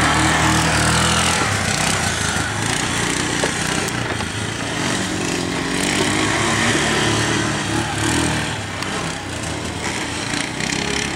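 Yamaha ATV's single-cylinder engine revving hard on a loose sand track, its pitch rising and falling again and again as the rider works the throttle.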